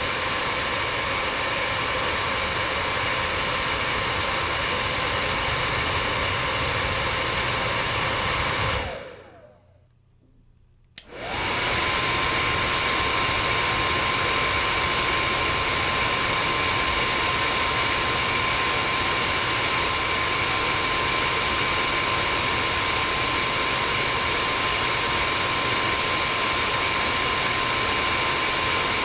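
Hair dryer running with a steady airy rush and a thin whine. About nine seconds in it is switched off and winds down to near silence. Some two seconds later a switch click starts it again, the motor spinning up quickly, and it runs steadily to the end.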